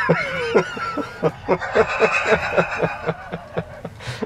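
A man laughing in short repeated breaths, about four a second. In the first second a high, wavering squeak slides down in pitch, and a steady high tone follows through the middle.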